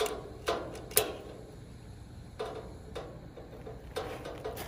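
Long-reach utility lighter's trigger clicked repeatedly, about seven sharp clicks in short runs half a second apart, as it is worked to light a paper pellet bag.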